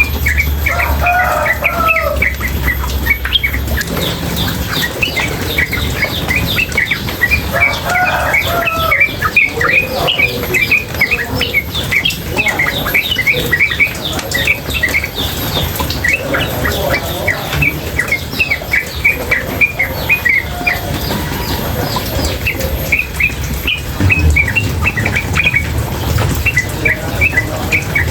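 Female yellow-vented bulbul giving a rapid, nonstop chattering run of short sharp notes, over the steady rush of running water.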